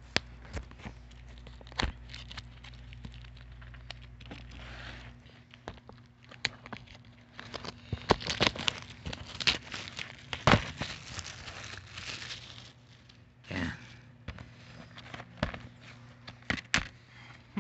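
Plastic shrink-wrap being slit and torn off a Blu-ray case, crinkling, with many sharp clicks and snaps as the plastic case is handled and opened. The crinkling is busiest about halfway through.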